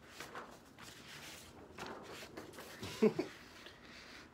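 Large sheets of drawing paper being lifted, flipped and slid over a stack, rustling in short strokes, with a brief pitched sound, the loudest moment, about three seconds in.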